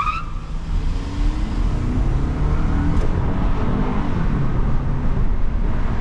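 Car engine and tyre rumble heard from inside the cabin while driving along a road, a steady low drone.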